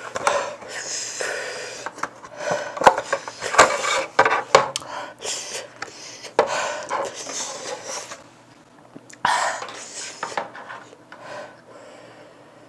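A person panting and breathing hard through the mouth from the burn of an extremely spicy pepper-coated nut, with rustling and a few sharp clicks from a cardboard package being handled and waved as a fan. The clicks come about three to four and a half seconds in; it quietens to softer breathing after about eight seconds.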